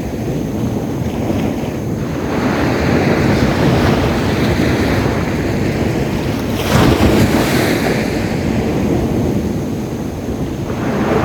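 Sea waves washing and breaking on a beach, with wind rumbling on the microphone. One wave breaks louder about seven seconds in.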